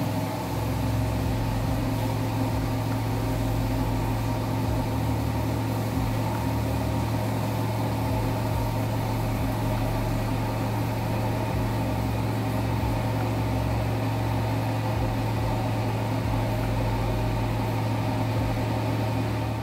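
Rug centrifuge (carpet spin-dryer) drum spinning at full speed: a steady motor hum and whine whose pitch settles just at the start, then holds level.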